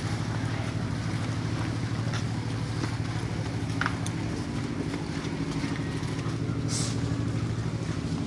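Boat engine running steadily at an even pitch, with a brief tick about four seconds in and a short hiss near the end.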